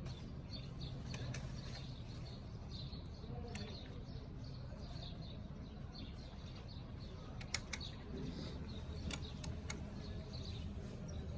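Small birds chirping repeatedly over a steady low hum, with a few sharp metallic clicks: a pair about seven and a half seconds in and three more around nine seconds in.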